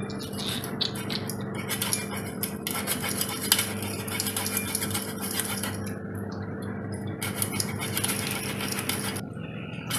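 Metal kitchen utensils repeatedly clinking, knocking and scraping against a pot or bowl.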